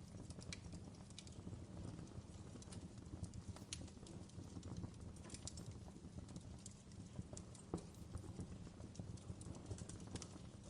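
Wood fire in a fireplace burning steadily: a low rumble with irregular sharp crackles and pops.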